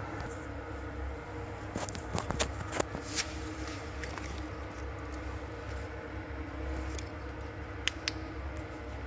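A steady low mechanical hum, with a cluster of sharp clicks and knocks about two to three seconds in and two more near the end.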